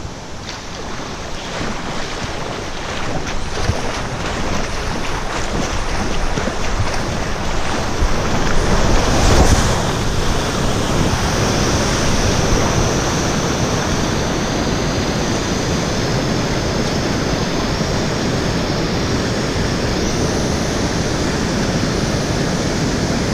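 Steady rushing of water from a small river waterfall, building over the first several seconds and loudest about nine seconds in, with wind buffeting the microphone.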